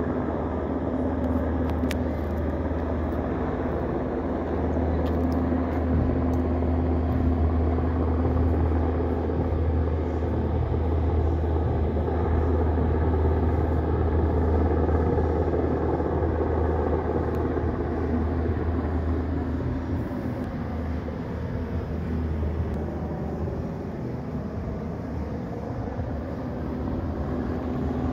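Helicopter flying overhead: a steady rotor and engine drone that is loudest in the middle and eases off somewhat in the last third.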